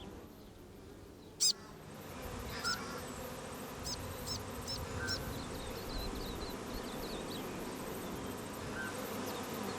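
Honeybees buzzing: a steady hum of many bees that sets in about two seconds in, with short, high bird chirps over it. A single sharp click comes about a second and a half in.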